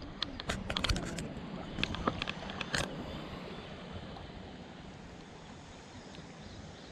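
Sharp clicks and small knocks of handling close to the microphone as hands work a popper fly out of a sunfish's mouth, thinning out after about three seconds. Under them runs a steady hiss of outdoor water and wind noise.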